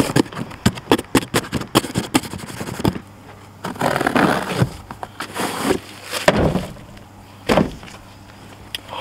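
A knife slicing and tearing through a cardboard box's tape and flaps: a fast run of sharp crackling rips for about three seconds. Then come scattered rustles and a few sharper tearing strikes as the box is worked open.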